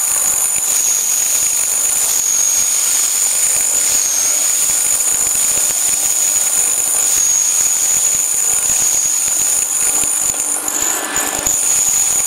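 Disc-type cocoa liquor grinding mill running steadily: a loud, even mechanical noise with a high, steady whine on top.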